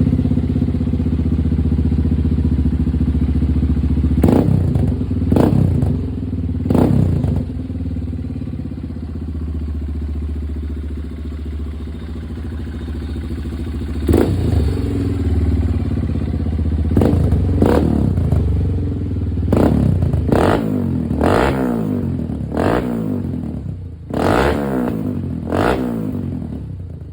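Honda CRF150L single-cylinder four-stroke engine running through a Pro Liner XR-1 aftermarket exhaust, idling and revved in about a dozen short throttle blips. The blips come closer together in the second half.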